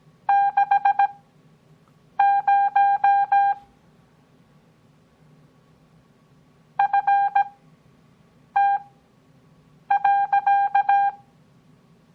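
Morse code (CW) practice tones: a single-pitch beep keyed on and off in dots and dashes at 17 words per minute character speed, with long Farnsworth gaps between characters. Five characters are sent, each separated by a pause of one to three seconds.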